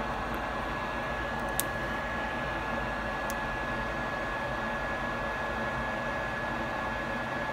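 Steady fan-like hiss with a faint high whine, the workshop's running equipment. A sharp small click comes about a second and a half in and a fainter one a little after three seconds, as flex-cable connectors are pressed onto an iPhone 6s logic board.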